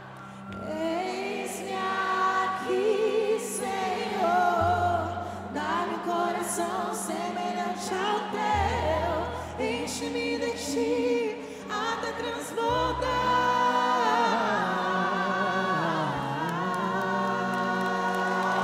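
Live Christian worship music: voices singing a slow melody over a held chord, with deep bass notes that change about every four seconds. The music swells toward the end.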